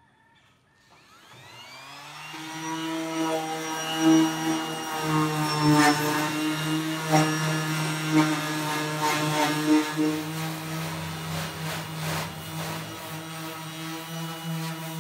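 Random orbital sander spinning up, its pitch rising over about a second and a half, then running steadily with a hum. Its pad scuffs across the sheet-metal top of a filing cabinet, with occasional sharper scrapes.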